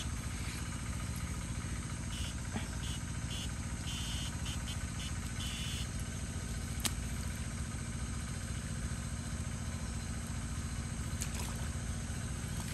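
Steady low drone of a small engine running, with a few short high-pitched buzzes between about two and six seconds in.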